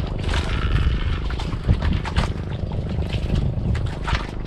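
Boat engine running steadily in a low drone, with scattered light clicks and clatter from plates and eating.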